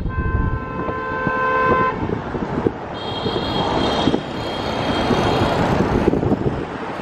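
Road traffic with vehicle horns sounding over it: one horn held for about two seconds at the start, then a second, higher-pitched horn from about three seconds in for about two and a half seconds.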